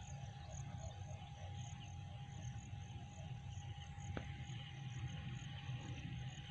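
Faint steady hum of a small electric sprayer pump, under insects chirping high and thin in quick regular pulses. A single click about four seconds in.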